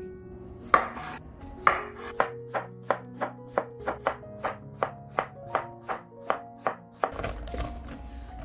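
Kitchen knife slicing a cucumber into thin rounds on a wooden cutting board: a quick, even run of crisp chops, about three a second, stopping about seven seconds in. Light background music plays under it.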